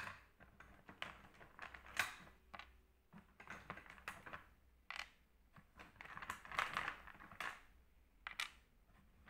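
Small plastic base-ten unit cubes clicking and clattering as they are picked out of a plastic tub and set down on a board. The clicks and knocks are irregular, roughly one a second.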